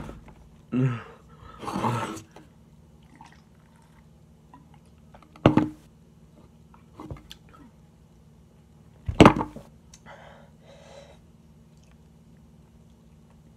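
Knocks on a wooden tabletop: a sharp knock about five and a half seconds in and a heavier thud about nine seconds in, the loudest sound here. Before them come a couple of short grunts and breaths, and a soft breath follows the thud.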